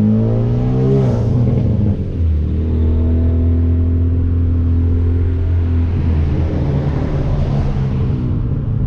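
Hyundai Veloster Turbo's turbocharged four-cylinder, fitted with a catless downpipe, heard through open windows while driving. The engine climbs in pitch and drops back about a second in, holds a steady note for a few seconds, then builds again near the end.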